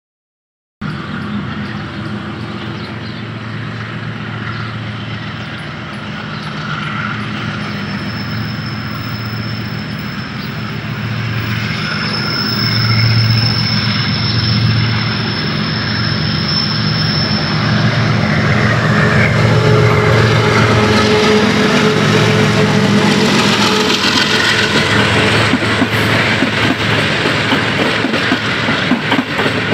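Pakistan Railways GEU-40 diesel-electric locomotive hauling a passenger express, approaching with its engine running and growing steadily louder. About two-thirds of the way in it draws level, and the rolling rumble and clatter of the locomotive's and coaches' wheels on the rails takes over.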